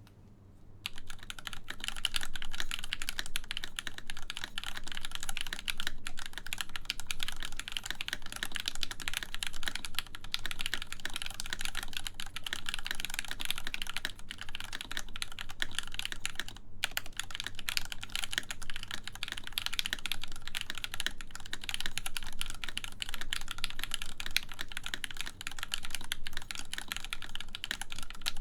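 Fast continuous typing on a full-size mechanical keyboard with Krytox 205g0-lubed Gateron X linear switches in a full aluminum plate and MW Retro Lights keycaps, starting about a second in with a brief pause later on.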